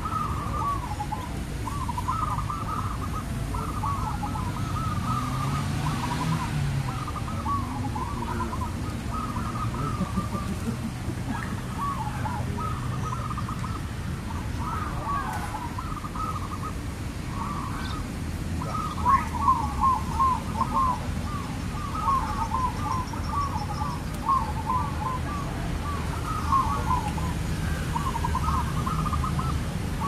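Zebra dove (perkutut) cooing: runs of quick, staccato trilled coos, repeated with short pauses and loudest about two-thirds of the way through, over a steady low background rumble.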